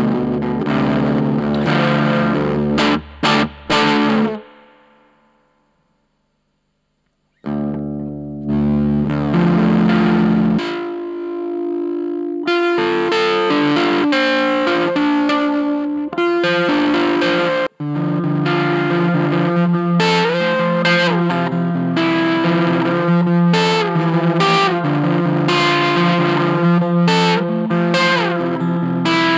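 Electric guitar played through a germanium fuzz pedal (Gone Fishing Effects Rage of the Tsar): thick, distorted riffs and chords. The playing stops short twice about three seconds in, rings away to silence, and starts again a few seconds later, running on to the end.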